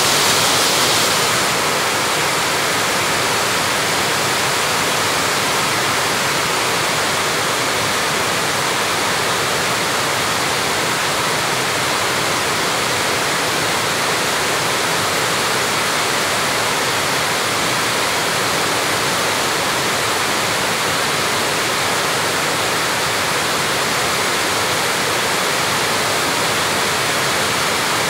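Steady tropical rain falling onto grass and a leafy shrub: a dense, even hiss, a little brighter in the first second or two.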